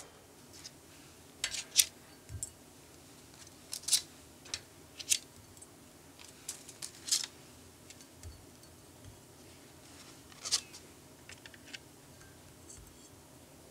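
Stiff gelatine sheets being handled and laid into a glass bowl of cold water, giving sparse, irregular crisp clicks and crackles, loudest about two and four seconds in.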